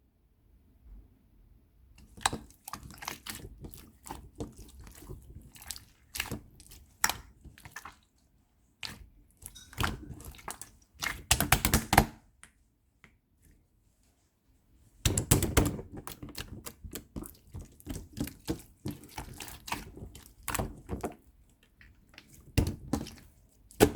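Mixed slime being played with by hand, giving irregular flurries of sharp clicks and pops, with two short pauses.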